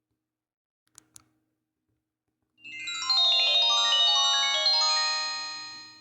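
Nokia 8210 4G default ringtone: a quick cascade of overlapping bell-like notes that ring on and pile up, starting about two and a half seconds in and fading out near the end. Two short clicks come about a second in.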